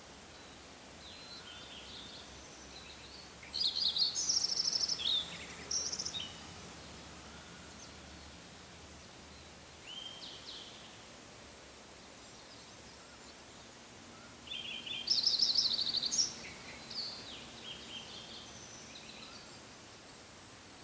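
A songbird singing twice, about ten seconds apart: each song is a complex, high phrase of quick notes and rapid trills lasting two to three seconds, with a shorter call between them and softer chirps over a steady faint outdoor hiss.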